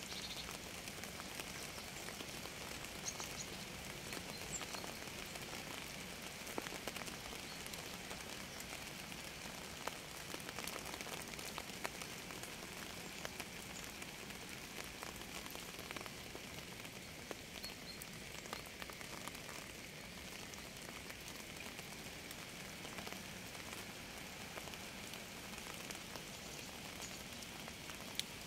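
Steady rain falling on a surface, with many separate drop hits sounding as short clicks.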